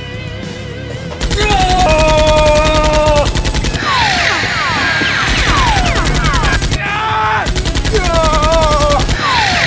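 Machine-gun sound effects firing in three rapid bursts, over music, with falling whistling sweeps between the bursts.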